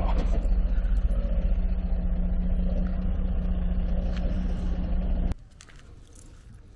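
An engine running steadily at idle: a loud, low, even drone with a constant hum. It cuts off abruptly about five seconds in, leaving only faint background sound.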